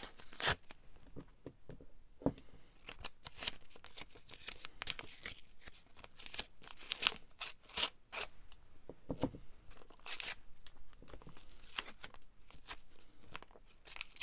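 Paper being cut and handled by hand: an irregular run of short crisp crackles, with a few sharper ones scattered through.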